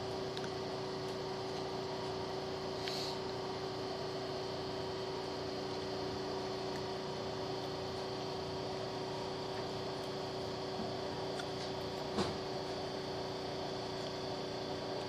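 Steady electrical hum inside a stopped Hanshin electric train car, with a constant mid-pitched tone over a low hiss. A single short click comes about twelve seconds in.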